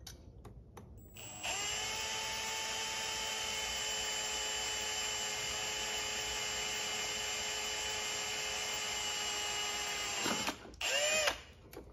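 Power drill with a small bit drilling a hole, running at a steady high-pitched whine for about nine seconds, then released and winding down near the end.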